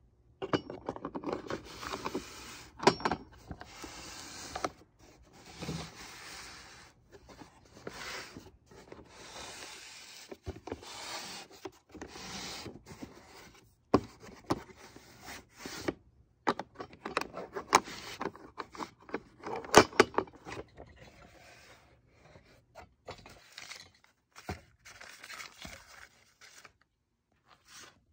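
Hands unlatching and opening an old carrying case and the metal tin of a SVEA No.100 stove kit: repeated rubbing and scraping with sharp metal clicks and clinks, in bouts with short pauses between.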